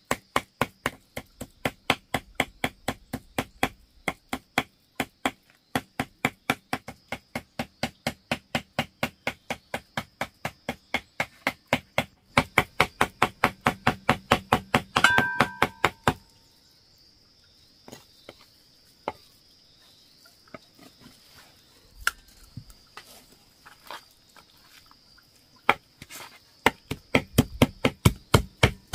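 A steel cleaver chopping pork on a wooden block, mincing it in quick, even strokes at about three a second. The chopping stops about sixteen seconds in, leaving a few scattered knocks, and starts again near the end.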